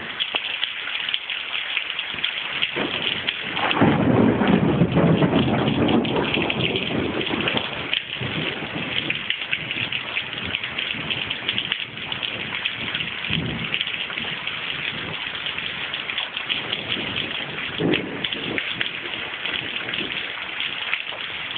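Heavy monsoon rain pouring steadily, a dense hiss of rain on surfaces. About four seconds in a louder low rumble swells for a few seconds, with weaker low swells later.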